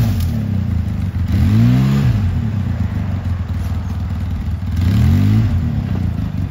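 Four-wheeler (ATV) engine running and revving up and back down twice, about two seconds in and again near the end, as it tows a rope tied around a shrub to pull it out of the ground.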